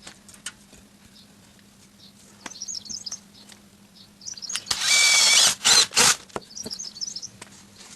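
A power drill runs in two short bursts about five seconds in, the first just under a second long, with scattered clicks of handling and birds chirping around it.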